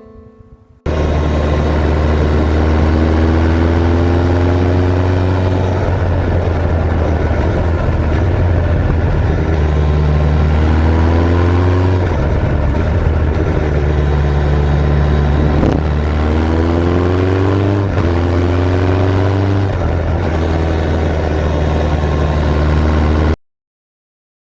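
Suzuki Hayabusa GSX1300R motorcycle being ridden, engine running under load with a steady low rumble and several rising sweeps in pitch as it accelerates. It starts suddenly about a second in and cuts off abruptly near the end.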